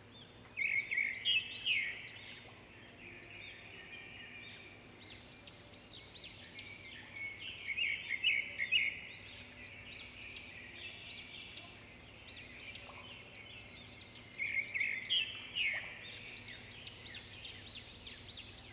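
Small birds chirping and twittering: clusters of quick, high chirps, loudest about a second in, around nine seconds, and again from about fifteen seconds.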